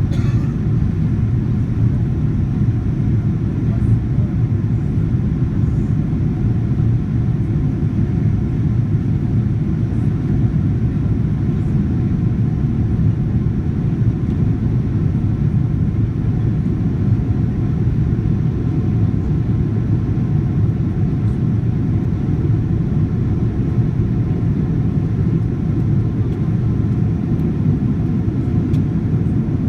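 Steady low rumble of jet engines and rushing air heard inside an airliner cabin in flight.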